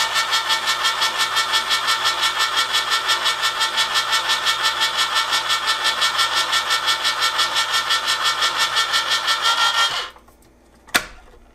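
Hamilton Beach Smooth Touch electric can opener running as it turns and cuts open a large 28-ounce can: a steady motor whir with a quick, even pulsing, about six or seven a second. The motor stops about ten seconds in, and a single sharp click follows a second later.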